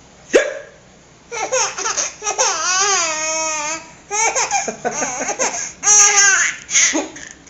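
Baby laughing hysterically: a long squealing laugh that wavers in pitch, then shorter choppy laughs. A short sharp hiccup comes about half a second in.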